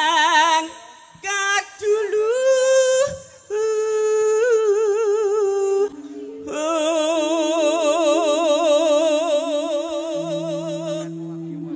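A woman singing a slow melody with strong vibrato in short phrases, ending in one long held note, over steady held accompaniment notes.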